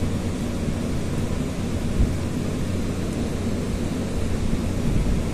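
Steady low rumble with a low hum under it, and one soft thump about two seconds in.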